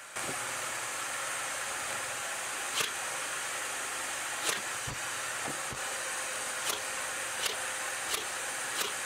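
Steady hiss with a scattering of light, sharp clicks and two dull knocks about halfway through, as a quarter-inch plywood side panel is fitted and nailed onto a cabinet with a cordless nail gun.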